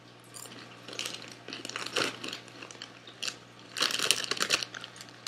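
Baked Cheetos snacks crunched and chewed in irregular bites. About four seconds in, a dense spell of crackling as a hand rummages in the crinkly snack bag.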